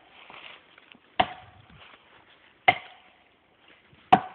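Axe chopping into the trunk of a large standing tree: three strikes about a second and a half apart, each a sharp crack with a short ring after it.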